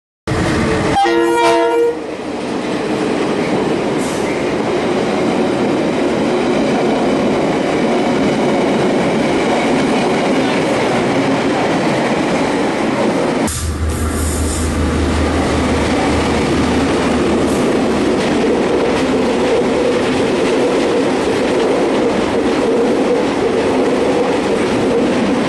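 A train horn sounds a short chord right at the start. Then a passenger train runs past close by with a steady rumble and wheel noise on the rails. After a sudden change about halfway, a low drone runs for a few seconds, then a freight train's wagons roll past with rail clatter.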